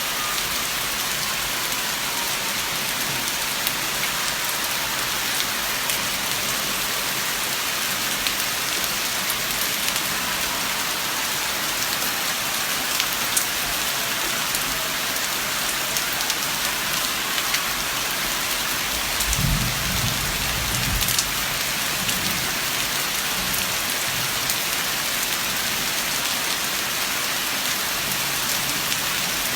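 Steady hiss of water falling and splashing on a surface, with a brief low thump about twenty seconds in.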